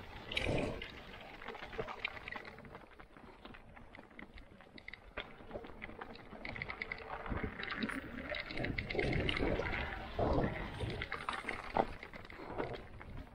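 Mountain bike rolling fast down rocky, gravelly singletrack: tyres crunching over loose stones, with irregular clicks and rattles from the bike as it bumps over rocks, swelling louder about two-thirds of the way through.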